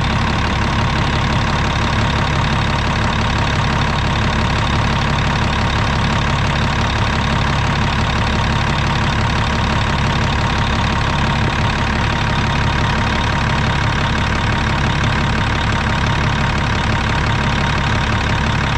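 Diesel engine of a Caterpillar 740 articulated rock truck running steadily at idle, driving the air-conditioning compressor while the A/C system is charged with R134a.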